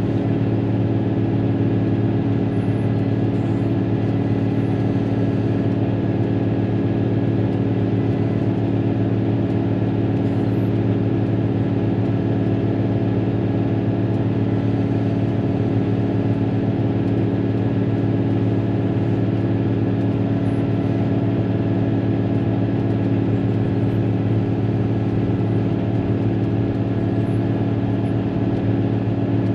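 Caterpillar motor grader's diesel engine running at a steady speed, heard from inside the cab as a constant low hum.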